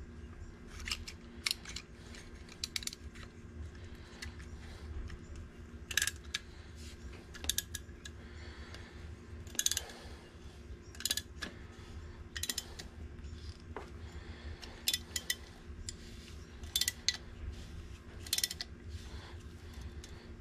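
Scooter front brake caliper being handled and worked in a rag: short metallic clicks and clacks, often in quick pairs, every second or two, as its stiff pistons are pushed back in. A steady low hum runs underneath.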